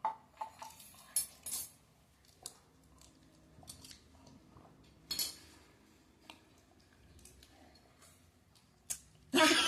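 Scattered light clicks and knocks, about ten brief separate sounds, the loudest about a second in.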